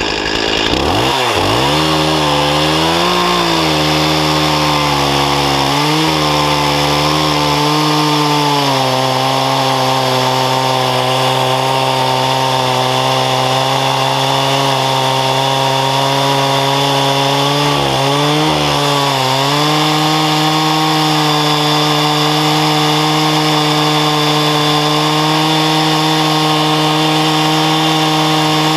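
Stihl 036 two-stroke chainsaw on an Alaska chainsaw mill, running loud while ripping a sugar maple log, with a chain that needs sharpening. The engine speed wavers up and down for the first several seconds, then holds steady, with a brief dip about two-thirds of the way through.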